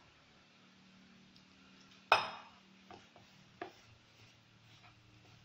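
A hand rubs flour and oil together in a plastic bowl with faint rustling. Its fingers knock sharply against the bowl once about two seconds in, then tap it twice more faintly over the next second and a half.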